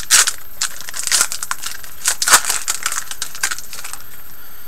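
A trading card pack's wrapper being crinkled and torn open by hand, in irregular crackles that ease off near the end.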